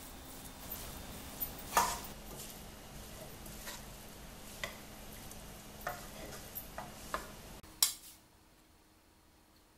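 Two wooden spatulas tossing and stirring noodles and vegetables in a nonstick wok, with scattered sharp knocks of wood against the pan, the loudest about two seconds in. Near the end the background hiss drops away abruptly, and one last sharp knock follows.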